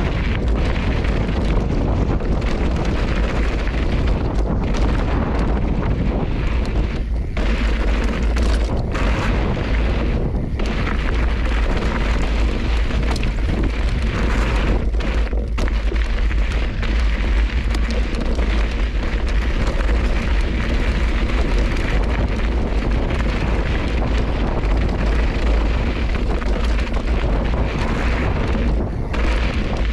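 Wind buffeting the camera's microphone as a mountain bike rolls down a rocky dirt trail, with a steady deep rumble, tyres crunching over loose gravel and a few knocks from the bike.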